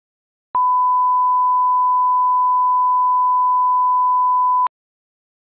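Steady single-pitch test tone, the kind broadcast over a TV test card, lasting about four seconds. It starts and stops abruptly, with a click at each end.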